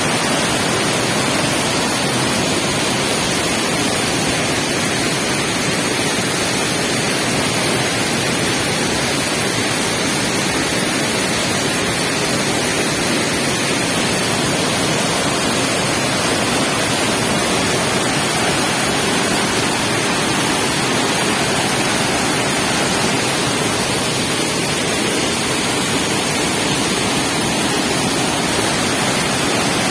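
Waterfall: falling water rushing loudly and steadily, without a break.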